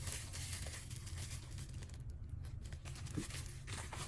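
Faint crinkling and rustling of packaging being handled, made of many small irregular clicks.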